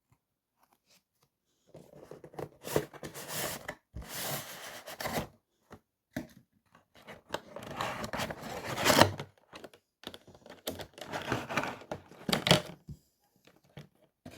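Model locomotive box being opened: packaging crinkling, tearing and scraping in irregular bursts with short pauses, starting about two seconds in.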